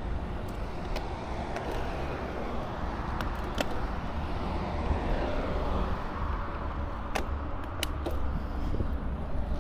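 Wind rumbling on the microphone outdoors, with a vehicle passing, swelling and falling in pitch about halfway through, and a few sharp clicks.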